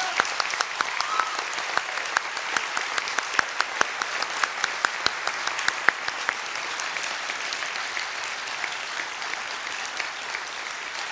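A large seated audience applauding, a dense steady patter of many hands clapping that eases slightly near the end.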